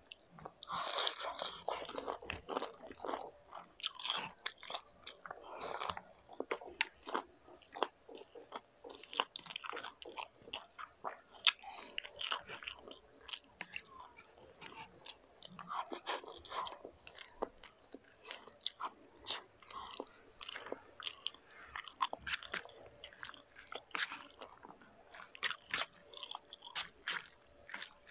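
A person biting and chewing crunchy fast food, with a steady run of crunches, wet mouth clicks and smacks.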